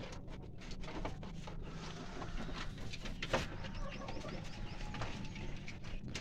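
Birds calling around a poultry coop, with scattered clicks and knocks over a steady low hum.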